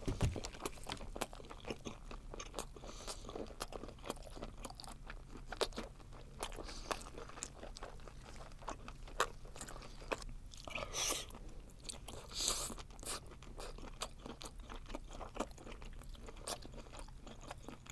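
Close-miked chewing of webfoot octopus (jjukkumi), spicy stir-fried and parboiled: many small, quick clicks and crunches of the flesh between the teeth, with a couple of longer, louder noisy sounds about eleven and twelve and a half seconds in.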